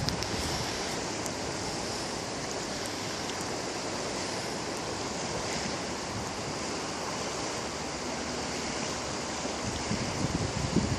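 Steady rushing outdoor noise, with a few low bumps near the end.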